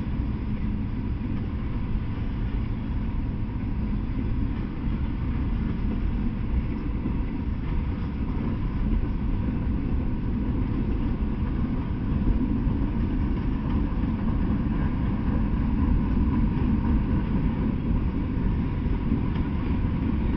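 Freight train of Norfolk Southern open-top hopper cars rolling steadily past, a continuous deep rumble of steel wheels on rail.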